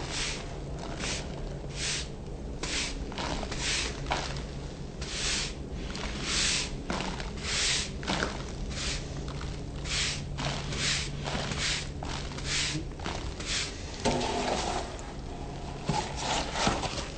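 Repeated rubbing strokes, about one or two a second, of a hand tool scraping and smoothing over a fresh hydraulic-cement patch on a concrete foundation, over a faint low hum, with a few handling knocks near the end.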